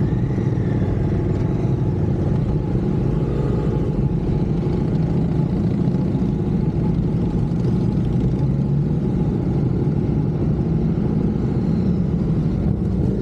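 Motorcycle engine running at a steady pace while under way.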